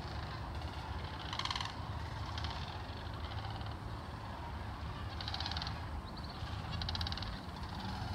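A flock of sandhill cranes calling, with several rolling, rattling calls coming in turns, over a low steady rumble.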